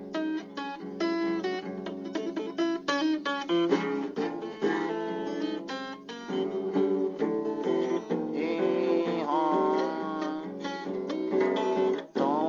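Acoustic guitar music with quick picked and strummed notes. A wavering held melody line comes in about two-thirds of the way through.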